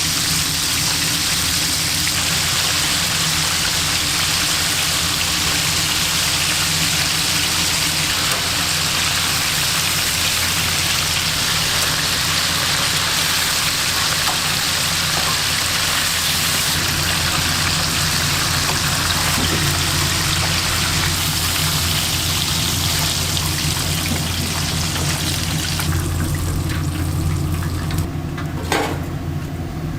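Food sizzling in hot frying oil: a steady, dense hiss over a low hum, thinning out about 26 seconds in.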